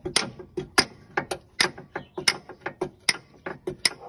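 Repeated light metal taps of a hammer on a round drift, driving a new press-in plug into the oil-channel hole of a Daewoo Lanos engine head. The taps are sharp and separate, about two to three a second, alternating stronger and softer.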